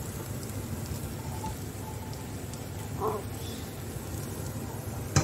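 Lit gas-stove burner hissing steadily. Right at the end comes a sharp metal clack as a steel pot is set down on the burner grate.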